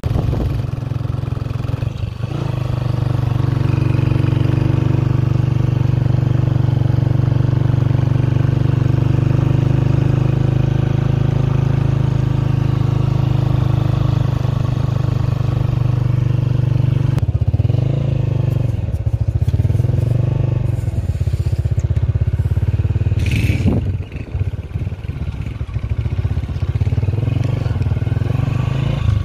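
Motorcycle engine running steadily as it rides along a road, a loud, even hum. About two-thirds of the way through its pitch wavers and drops as the throttle eases, then it settles again.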